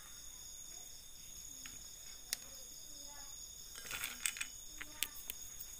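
Crickets chirping steadily in the background, with a few light clicks and taps about two, four and five seconds in as peanuts are handled.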